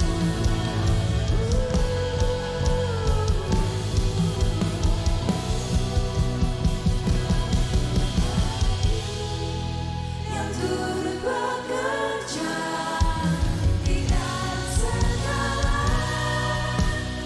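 Contemporary Christian worship song: singers over a band with a steady drum beat. About ten seconds in, the drums and bass drop out for a few seconds, then come back in.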